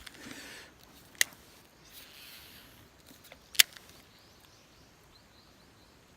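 Fishing rod and reel being handled: two sharp clicks, one about a second in and a louder one about three and a half seconds in, with brief soft swishing sounds between them.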